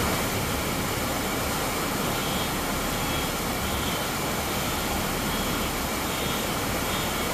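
Steady hiss of heavy rain pouring onto a flooded street.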